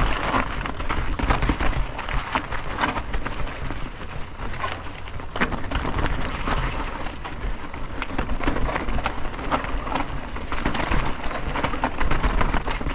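Mountain bike descending a rocky technical trail: tyres crunching over rock and loose stones and the bike rattling, with many small knocks and a steady rumble underneath.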